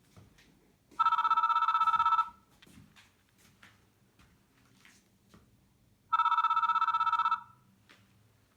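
Doro 1360 mobile phone playing a trilling two-tone electronic ringtone through its loudspeaker. It rings twice, each ring about a second long, about five seconds apart.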